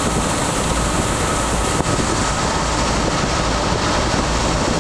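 Steady road, wind and engine noise inside the cabin of a Toyota 4Runner driving on the freeway, with the A/C blower running on high.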